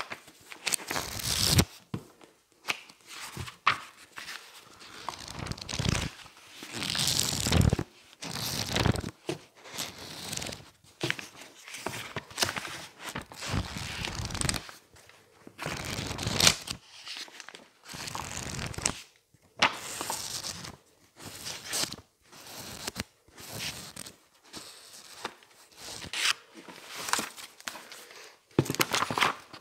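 Thin pages of a thick dictionary being flipped and riffled quickly by hand: an irregular run of papery swishes and flutters, some drawn out and some short and sharp, with brief pauses between.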